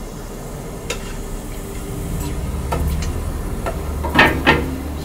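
Pancake batter being poured and scraped from a metal mixing bowl into a frying pan warming over a low gas flame, with a light sizzle and a few soft clicks. About four seconds in come two sharp clinks of the bowl in quick succession, under a low steady hum.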